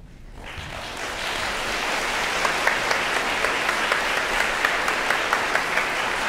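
Audience applauding after a choir song: the clapping swells over the first second or so, then holds steady, with single claps standing out.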